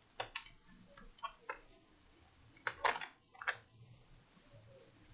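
Several separate sharp clicks and light taps of a laptop's plastic parts being handled and pressed, with the loudest click near the middle.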